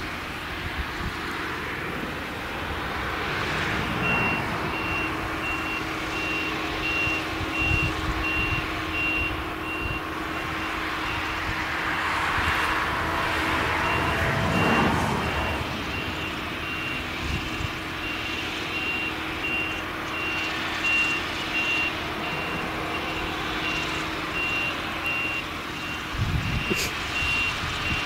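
A vehicle reversing alarm beeping steadily, starting a few seconds in, over the running MAN V8 engine of a Claas Jaguar 970 forage harvester working in maize.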